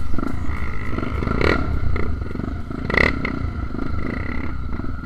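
Honda XR 250 Tornado dirt bike's single-cylinder engine running, with a heavy low rumble of wind on the microphone. Two sharp knocks come about one and a half and three seconds in.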